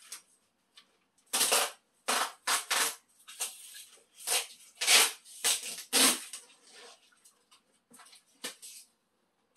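Packing tape and a cardboard box being worked by hand: a series of short crackling scrapes as tape comes off the roll and is pressed down on the box's flaps. The sounds are bunched in the first six seconds, with one more near the end.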